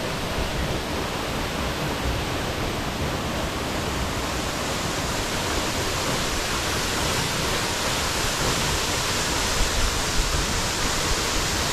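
Waterfall: a steady rush of falling water, a little louder and hissier in the second half.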